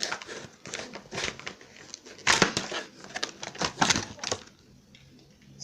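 Toy packaging being torn and crinkled open by hand, a run of rustling and crackling with two louder bursts in the middle, then quiet near the end.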